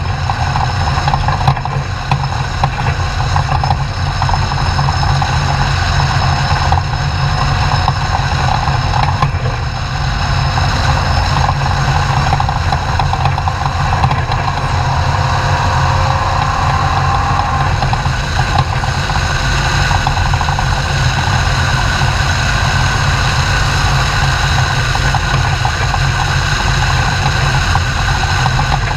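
Class 2000 off-road race truck's engine running steadily, a constant low drone with no clear revving or pauses.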